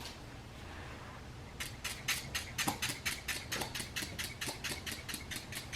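Hair-fiber spray pumped onto the hairline in a rapid run of about twenty short hissing spritzes, roughly five a second, starting about a second and a half in.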